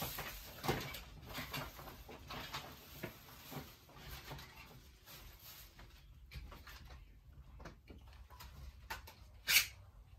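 Scattered small knocks, clicks and rustles of someone moving about and handling things, over a low steady room hum, with one sharper, louder rustling burst about nine and a half seconds in.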